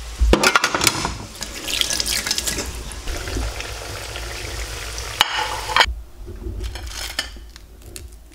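Breadcrumb-coated tempeh sizzling in hot frying oil, a dense crackling hiss that stops about six seconds in. A few light knocks follow as the fried pieces are handled on a plate.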